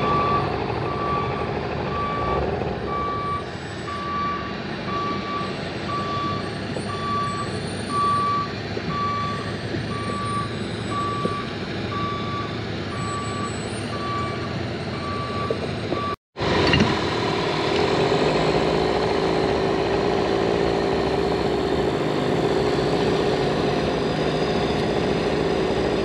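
A truck's reversing alarm beeping about once a second over its running engine as it backs up. The beeping stops at a cut about 16 seconds in, after which a steady engine drone continues.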